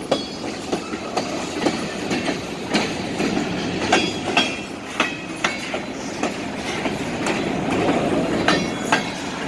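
Freight train cars rolling past up close: a steady rumble of steel wheels on rail, with irregular clacks and several brief high metallic squeals from the wheels.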